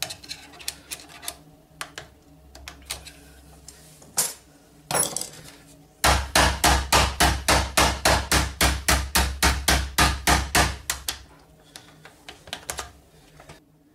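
Metal probe tool clicking and scraping inside a snapped ABS euro cylinder lock, then rapid, even metal knocks, about four or five a second for some five seconds, as the tool is struck against the lock. The lock's clutch keeps the central cam blocked, so the probing gets no purchase.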